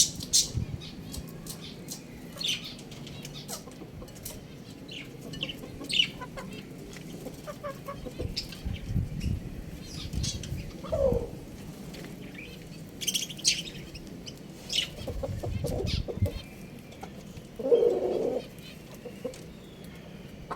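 Chickens calling: scattered short high chirps, a single downward-sliding call about eleven seconds in, and a short squawk near the end, with low rumbles in between.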